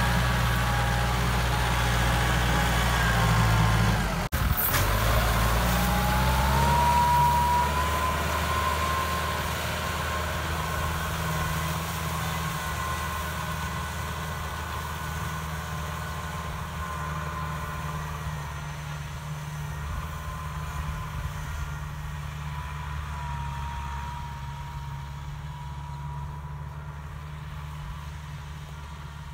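Kubota M6240 tractor's four-cylinder diesel engine running steadily under load while pulling a disc plough through the soil, close at first and then fading gradually as the tractor moves away. The sound breaks off for an instant about four seconds in.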